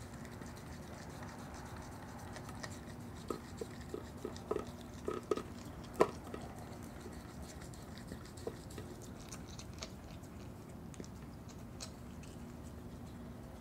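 Virginia opossum chewing ice cream and drumstick cone at a food bowl. A run of crisp clicks and crunches comes between about three and six and a half seconds in, the loudest near six seconds, then sparser small clicks of chewing, over a faint steady hum.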